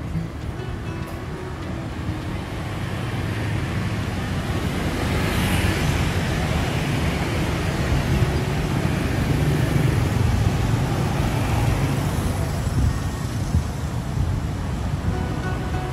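City street traffic: motor scooters and cars passing on the road, a steady rumble that grows louder about five seconds in as vehicles go by.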